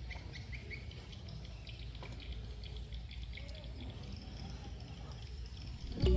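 Faint outdoor background with a rapid series of short high chirps, about five a second, that thins out to scattered chirps after the first second, over a low steady rumble. Music comes in loudly just before the end.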